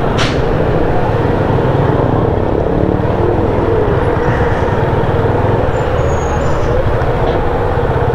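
Motorcycle engine running steadily while riding in slow traffic, under constant road and wind noise. A short click comes just after the start.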